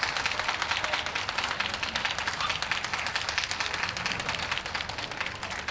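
Audience applauding, many hands clapping in a dense patter that slowly fades.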